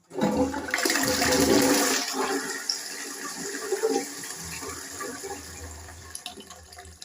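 Toilet flushing: a sudden rush of water that starts just after the beginning, is loudest for about the first two seconds, then fades gradually.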